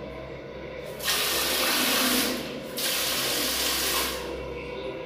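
A newly installed handheld toilet sprayer (hand shower) is being tested, spraying water into a toilet bowl. It gives two hissing bursts of about a second each, with a short break between them.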